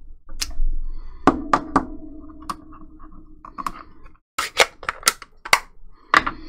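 A dozen or so sharp, irregular clicks and light knocks of hard plastic on a cutting mat as a clear acrylic stamp block is lifted off the card and an ink pad is moved aside.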